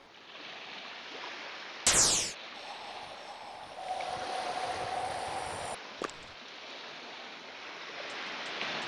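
Steady rushing wind sound effect. A short, loud whoosh comes about two seconds in, a steady tone rises over the wind for a couple of seconds in the middle, and a sharp click follows.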